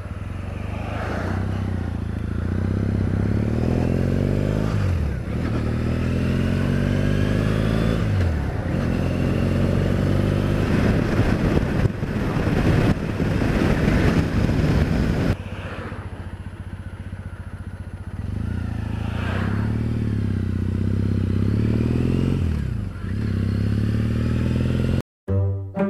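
Motorcycle engine pulling away and shifting up through the gears, its pitch climbing and then dropping sharply at each change, with a steady rush of wind under it. The sound cuts off abruptly near the end.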